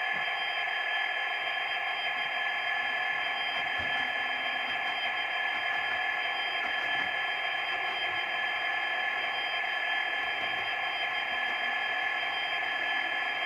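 Model class 92 electric locomotive's sound decoder playing steady electric-loco running sounds: an even hiss with a few constant high-pitched whining tones.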